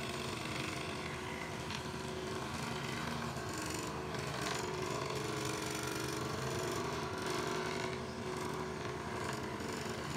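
Electric scroll saw running steadily, its fine blade moving rapidly up and down as it cuts a curve through a wooden board.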